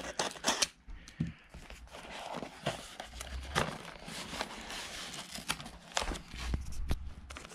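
A parcel being unpacked by hand: packing material rustling and crinkling, with scattered light knocks and clicks as the box and its contents are handled.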